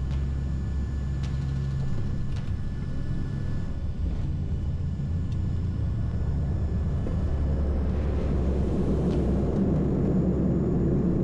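Cockpit noise of a NOAA P-3 Orion's four Allison T56 turboprop engines as the aircraft rolls along the runway: a steady low drone with a few steady hums, growing louder over the last few seconds.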